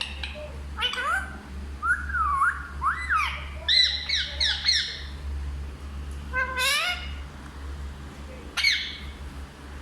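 Pet parrot calling: a string of short squawks and chirps that slide up and down in pitch, with a quick run of about five repeated notes midway, a rising call after it, and one more squawk near the end.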